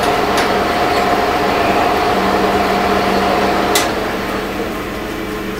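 1943 Sidney 16x54 engine lathe running under power, a steady whine with a hum beneath. About four seconds in a lever clicks sharply and the whine stops, leaving a quieter running sound.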